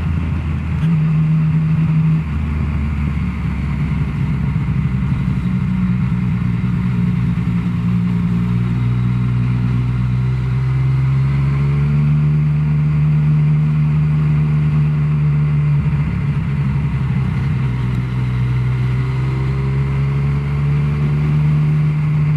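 Yamaha Tracer motorcycle engine through a Scorpion exhaust, riding along with the pitch shifting in steps in the first few seconds as it goes through the gears, then holding steadier, over wind and road noise.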